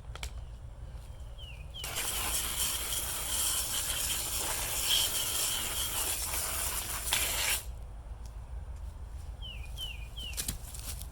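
A steady hiss lasting about six seconds, starting about two seconds in and cutting off suddenly, typical of air or a spray being blasted during chainsaw cleaning. Short falling bird chirps sound before and after it.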